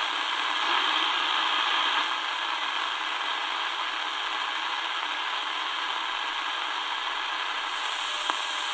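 Shortwave static hissing steadily from a Tecsun DR-920C portable radio's speaker as its analog dial is tuned slowly down between stations, with one sharp click near the end.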